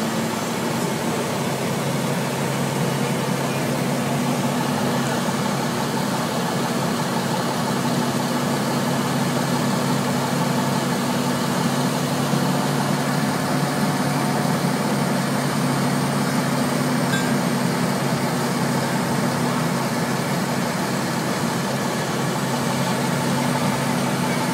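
Fire engines running steadily at the scene, a constant engine hum with an even drone that does not change.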